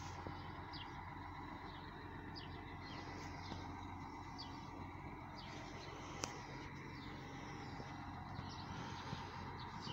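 Steady engine hum, with short high bird chirps about once a second.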